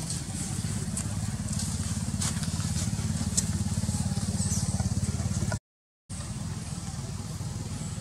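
Steady low engine rumble, like a motor running at idle, with faint scattered ticks above it. The sound cuts out for about half a second around five and a half seconds in, then resumes.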